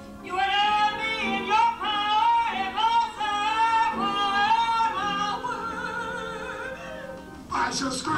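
A high singing voice in a comic stage duet over live accompaniment, sliding between notes and ending a held note with a wide vibrato before a fuller musical phrase starts near the end.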